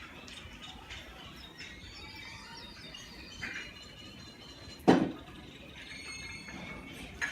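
Quiet background with faint bird chirps, broken by a single sharp knock about five seconds in and a small click near the end.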